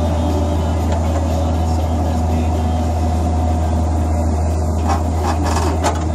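JCB backhoe's diesel engine running steadily under load with a deep constant hum while the bucket digs a trench in dry soil. A few short scrapes or clunks from the bucket about five seconds in.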